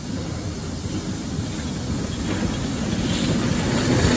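Ex-GWR 57xx pannier tank steam locomotive approaching with its coaches, a low rumble growing steadily louder as it nears, with wind on the microphone.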